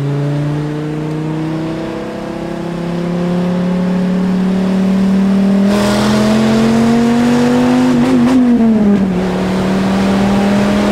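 Dodge Viper SRT-10's 8.3-litre V10 heard from inside the cabin under acceleration, its pitch rising steadily and getting louder about halfway through. About three-quarters of the way in the pitch drops at an upshift, and the engine then holds a steady pitch.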